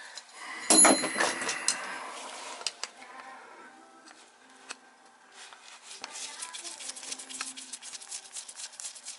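A sharp metallic clank with a short ring about a second in, then small clicks and quick scraping as a screwdriver tip works at the little washer screw in the end of an old brass tub faucet stem.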